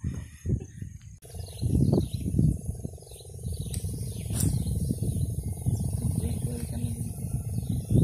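Wind noise on the microphone, rising and falling, under a steady high insect drone and short bird chirps, with one sharp click a little past halfway.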